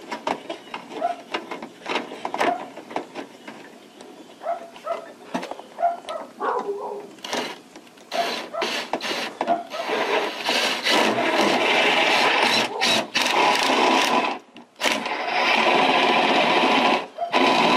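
Cordless drill driving a screw through an aluminum gutter, its motor running in a few long bursts through the second half, broken by a brief stop. Before that there are scattered small clicks and taps as the screw is set in place by hand.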